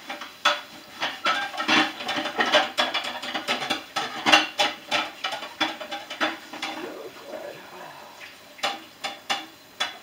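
Dishes and cutlery clattering and clinking as they are handled at a kitchen sink: a quick, dense run of knocks that thins to a few scattered clinks over the last couple of seconds.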